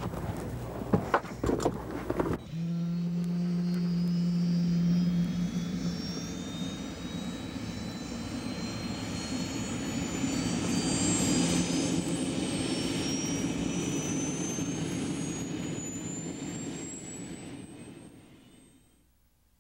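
A few knocks, then a helicopter turbine engine running with a whine that rises steadily in pitch, before fading out near the end.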